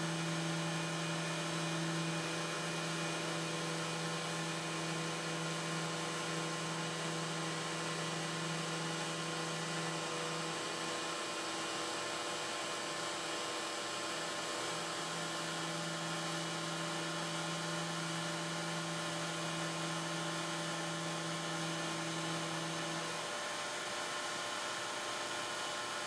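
CNC router spindle milling carbon fiber sheet, with a dust-extraction vacuum running at the bit: a steady low hum over an even hiss. The lowest part of the hum drops out for a few seconds midway, and the hum stops near the end while the hiss carries on.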